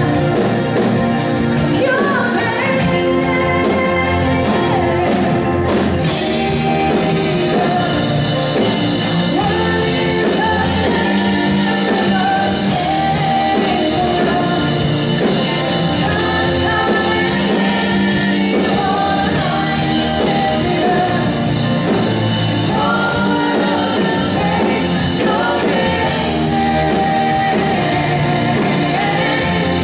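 Live band playing a contemporary worship song, with a woman singing lead over electric guitar, bass guitar, keyboard and drums. Cymbals come in about six seconds in.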